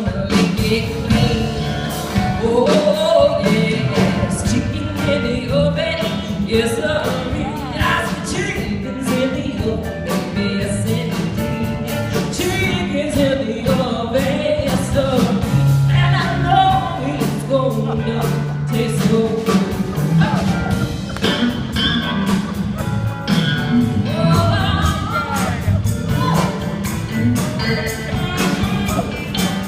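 Live music: a woman singing over instrumental accompaniment in a sultry, sassy arrangement, with wavering sung lines and a held low note in the middle.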